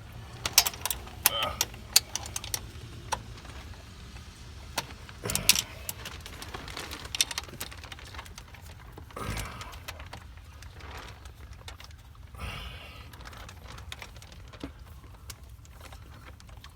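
Irregular metallic clicks and clinks of hand tools and parts being worked on an engine's EGR valve fitting, over a steady low hum. The clicks come in scattered clusters, loudest in the first couple of seconds.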